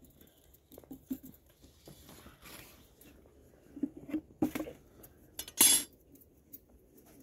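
Cutlery and dishes clinking and knocking in scattered light taps, with one brief, louder burst of noise about five and a half seconds in.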